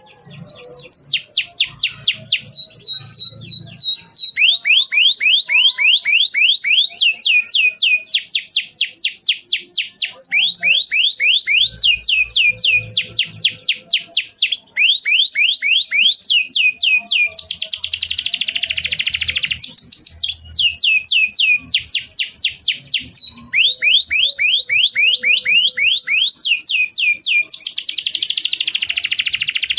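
Domestic canary singing a long, unbroken song of fast, high, downward-sweeping chirps, several a second. Twice, in the second half, the chirps give way to a dense buzzing roll lasting a couple of seconds.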